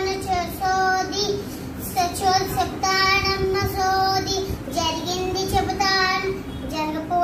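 A young girl singing a chant in a high, sing-song voice, holding long notes in short phrases, in the manner of a Sodamma fortune-teller's chant.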